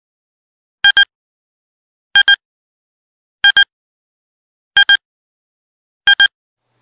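Countdown-leader sound effect: a quick double beep repeated about every 1.3 seconds, five times, in step with the counting numbers.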